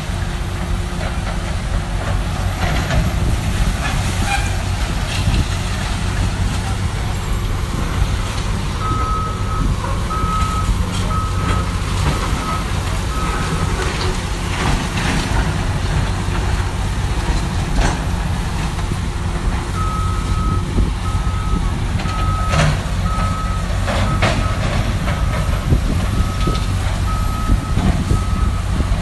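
Heavy demolition machinery running with a steady low engine rumble. Its reversing alarm gives an evenly spaced run of beeps about a third of the way in, then starts again about two-thirds through. Scattered knocks sound over the engine.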